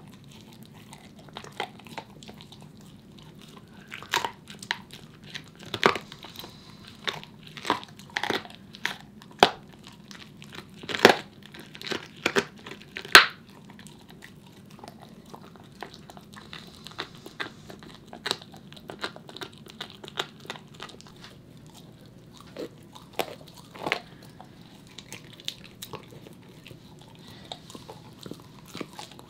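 A corgi gnawing and crunching on a raw bone with its teeth: irregular sharp crunches and clicks, busiest in the first half, with the loudest crunches near the middle.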